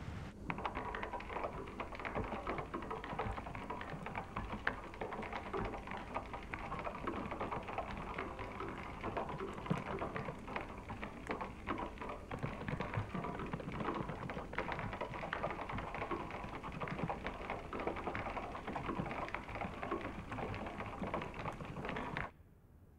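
Rapid computer-keyboard typing: a dense, continuous clatter of key clicks that cuts off abruptly near the end.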